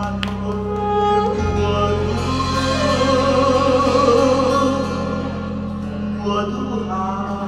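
A man singing a Vietnamese song live into a microphone, with held sung notes, accompanied by acoustic guitar and electronic keyboard; the low accompanying chord changes about a second and a half in.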